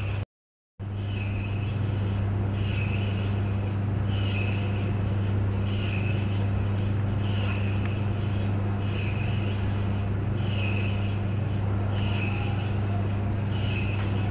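Clothes dryer running: a steady, deep motor hum with a higher swish repeating about once a second as the drum turns. The sound cuts out completely for about half a second just after the start, then resumes.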